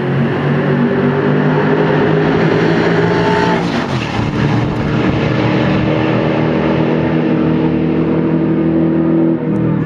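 Two Ford Mustang GT race cars' V8 engines passing close by at speed; the engine note drops sharply in pitch as they go past about three and a half seconds in, then runs on steadily as they pull away.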